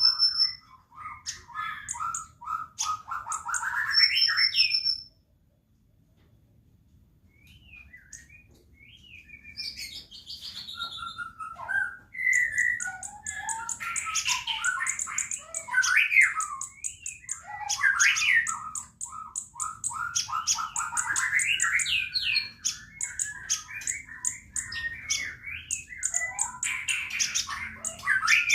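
Sunbird singing: rapid high chirps, trills and twittering runs in long bursts, broken by a pause of a few seconds about five seconds in.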